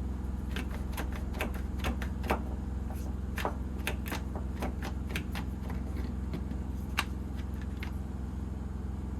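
Quick-grip bar clamp being worked by hand: repeated irregular clicks, two or three a second, as the trigger handle is squeezed and the bar slides and locks. The clamp has just been cleaned, oiled and reassembled and now grips instead of slipping.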